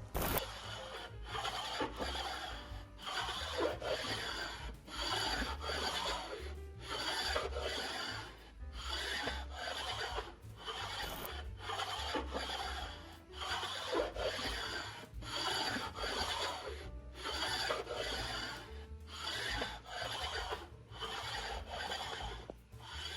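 Abrasive stone being scraped back and forth across the deck surface of an engine block, a steady rasping stroke roughly once a second, to flatten the warped low spots.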